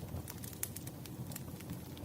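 Wood fire burning: a steady low rumble of flames with irregular sharp crackles and pops, several a second.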